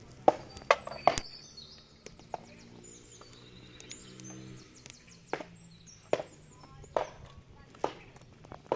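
A series of sharp chopping knocks: three close together at the start, one a little later, then a steady run of about one knock a second.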